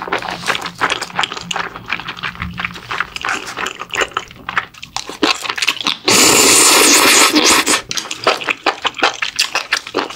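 Close-miked eating sounds of a person chewing mala-sauced pork trotters: a quick stream of wet smacks and clicks. About six seconds in, a loud, steady rushing hiss lasts about a second and a half.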